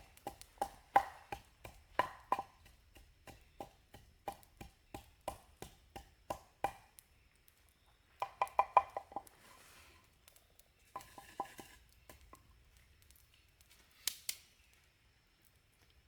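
A blade chopping against a hard surface: a run of sharp strikes, each ringing briefly, at about two a second, with quick flurries of strikes about halfway through and again a few seconds later.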